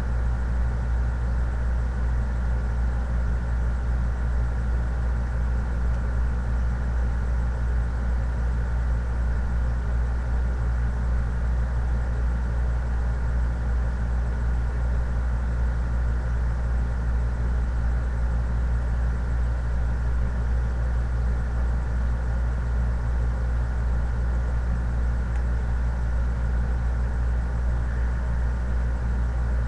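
A steady low hum that does not change, with a faint thin tone above it.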